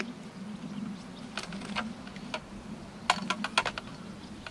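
Fishing tackle handled at the seat box: a few quick clicks and taps in two short bunches, the second louder, over a steady low hum.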